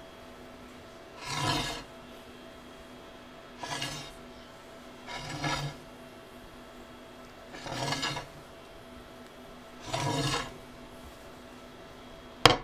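Hand file rasping along the edge of a large brass slip ring in five separate half-second strokes, a couple of seconds apart, taking burrs and high spots off the ring's edges. A sharp click comes near the end.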